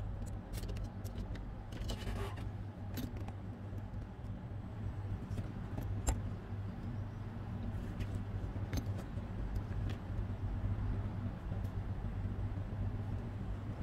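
Steady low hum with a few faint clicks and a brief rustle about two seconds in.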